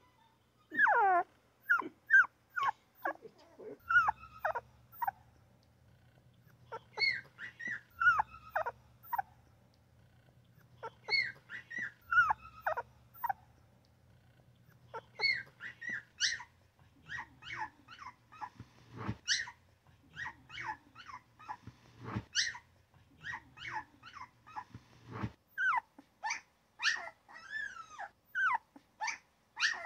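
Newborn puppy whimpering and crying in short, high squeals that drop in pitch. They come in bouts of a few every several seconds, then in a near-continuous run of yips through the second half.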